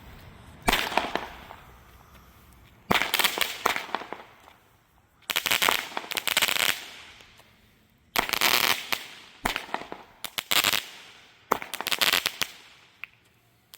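A 16-shot consumer fireworks cake firing its shots. Sharp bangs come every one to three seconds, some in quick clusters with crackle, and each fades away before the next.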